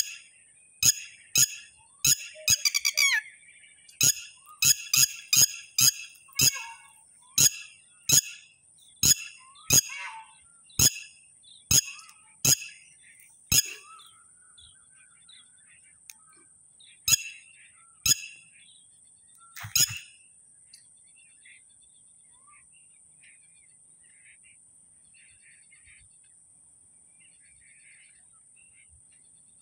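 Red-wattled lapwing calling: loud, sharp calls repeated about once or twice a second, with a quick run of notes about three seconds in. The calls thin out after about fourteen seconds and stop after a last call near twenty seconds, leaving only faint chirps.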